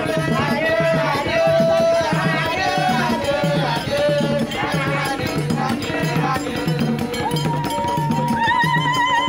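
Traditional Ghanaian festival dance music: a steady drum beat of about two strokes a second, with shaken rattles and voices singing. A long wavering held note joins about seven seconds in.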